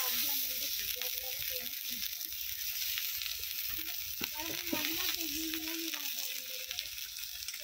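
Besan-battered brinjal slices sizzling in hot oil on an iron tawa: a steady hiss with a few sharp pops around the middle.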